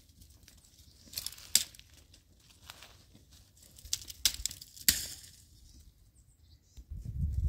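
Dry twigs snapping and dead leaves crackling in sharp, separate snaps, a few together about a second in and again around four to five seconds in. A low rumble comes in near the end.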